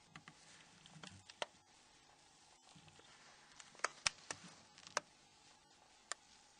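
Faint, scattered small clicks and taps of a metal tool and the plastic housing parts of a Nokia N93 mobile phone being handled as a cover is pushed into position, with the clearest clicks near the middle.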